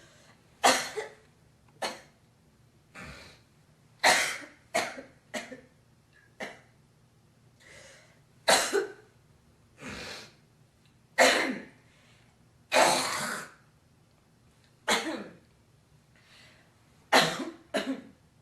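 A woman coughing repeatedly, short single coughs and quick pairs, with one longer, drawn-out one about two-thirds of the way through: coughing to bring up phlegm.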